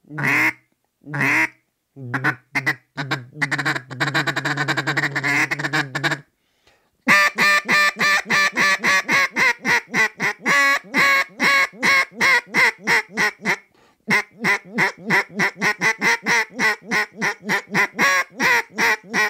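Echo Timber double-reed duck call blown to imitate a mallard hen: a few single quacks, a low run of quick notes, then two long strings of quacks at several a second, the first starting loud and tapering off. The calling ranges from high, loud hail calling down to low, content hen sounds.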